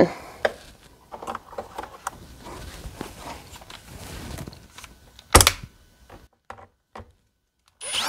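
Small clicks and rustles of a metal door latch and its screws being handled and pressed into the edge of a wooden door, with one sharp knock about five and a half seconds in.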